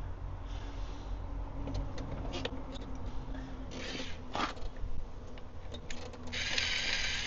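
Tool work on a bolt of a handbrake extender being fastened: small clicks and scrapes, and a rasping noise of about a second near the end.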